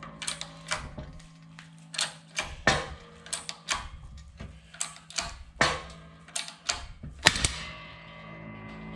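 Bottle jack of a 12-ton shop press being pumped by hand to press a universal joint cap out of an axle shaft: irregular metallic clicks and knocks, with one much louder sharp crack about seven seconds in.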